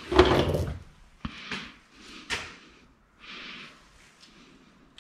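A metal timing chain for a Genesis Coupe 2.0 engine being handled. It rattles and rustles as it is lifted in the first second, then gives a few sharp clicks and a softer rustle as it is fitted over the cam sprockets.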